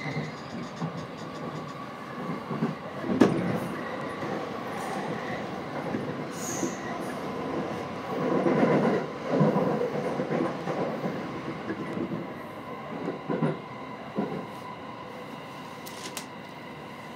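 Electric commuter train running, heard from inside the carriage as it approaches a station: a steady rumble of wheels on rail under a faint steady whine. There is a sharp clack about three seconds in, louder rail noise around the middle, a few more knocks, and the noise eases toward the end.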